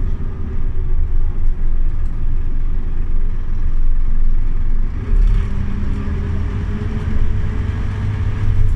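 Scania OmniLink city bus heard from inside while it runs: a steady low engine rumble, joined about five seconds in by a steady whine from the drivetrain.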